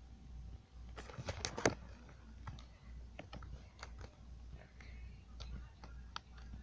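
Light clicks and taps, like typing on a computer keyboard: a quick run of several clicks between one and two seconds in, then scattered single clicks, over a steady low hum.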